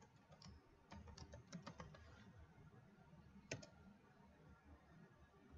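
Faint computer keyboard typing, a quick run of keystrokes over the first two seconds as a password is entered, then a single sharper mouse click about three and a half seconds in.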